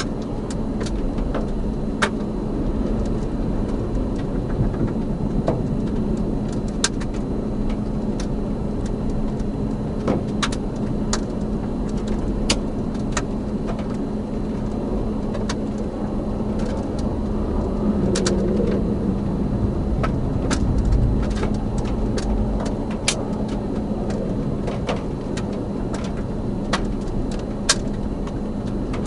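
Steady low rumble of wind and a running vehicle with a constant low hum, broken by scattered sharp ticks.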